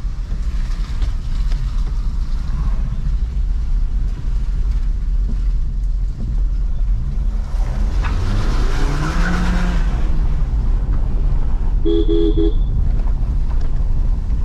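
Steady low rumble of a Maruti Suzuki Swift AMT driving over a rough, potholed road, heard from inside the cabin. In the middle comes a louder swell with an engine note that rises and then falls. About twelve seconds in, a vehicle horn toots once, briefly.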